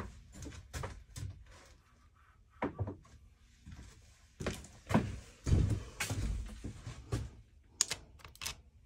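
Irregular metal knocks and clicks as a slotted hold-down bolt is worked loose and unscrewed from a milling-machine rotary table, with a cluster of louder thumps about halfway through and a few sharp clicks near the end.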